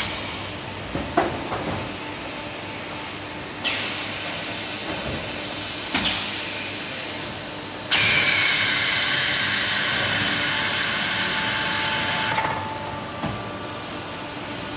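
Pneumatic cylinders of an automatic foundry moulding line cycling: sharp metal clanks and knocks, and compressed air venting with a hiss. The hiss starts suddenly a few seconds in and is loudest for about four seconds from about eight seconds in.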